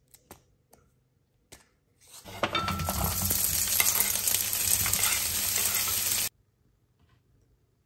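Food sizzling and crackling in a hot frying pan for about four seconds, then cutting off abruptly, after a few faint taps.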